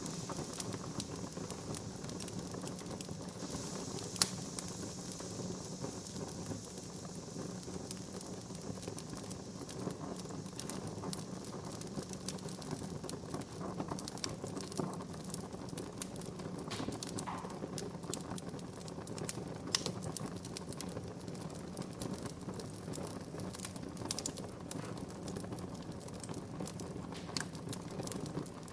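Wood fire crackling steadily, with dense irregular snaps and a few louder pops, over a soft hiss that fades after the first third.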